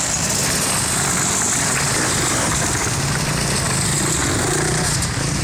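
Several dirt-bike engines running together on a rough track, a steady loud engine din with no single standout rev.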